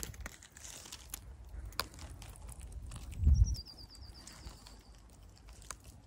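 Dry gorse twigs crackling and clicking as the spiny bush is handled and pushed through, with a low thump about three seconds in. A faint high trill of a small bird's repeated notes follows the thump.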